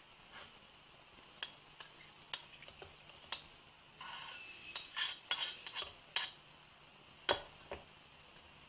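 Grated onion being stirred and pressed in a strainer over a glass to squeeze out its juice: scattered light clicks and scrapes of a utensil against the strainer and glass, with a busier run of scraping in the middle and one sharp click late on.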